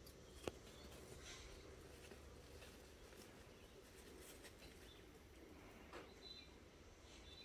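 Near silence: faint outdoor ambience with one soft click about half a second in and a few short, faint high chirps near the end.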